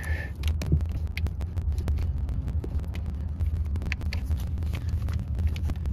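Small scattered clicks and knocks of hands threading a brass winterizing bypass valve onto an RV water pump's plastic plumbing fittings, over a steady low rumble.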